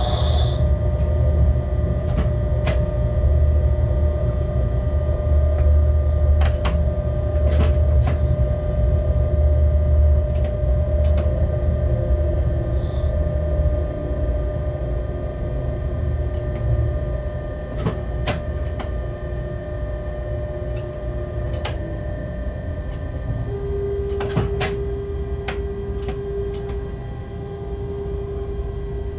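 Locomotive cab at low shunting speed: a steady low rumble with humming tones from the drive, and sharp clicks here and there from the wheels over rail joints and points. The rumble eases about halfway through as the loco slows, and a new steady hum sets in near the end.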